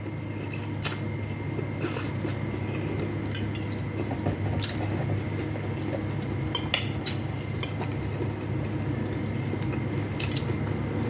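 Spoon and cutlery clinking now and then against bowls and dishes during a meal, a handful of sharp clinks spread out, over a steady low hum.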